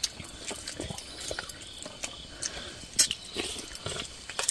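Scattered clicks and small taps of people eating with a spoon and their fingers, with the sharpest tap about three seconds in. Faint steady chirring of night insects sounds underneath.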